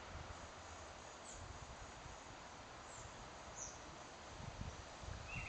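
Faint outdoor ambience: a steady low hiss with a few brief, faint high chirps.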